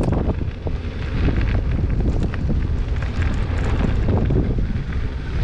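Wind buffeting the microphone as a bicycle rolls over loose gravel, a steady rumble with scattered crackles of tyres on stones.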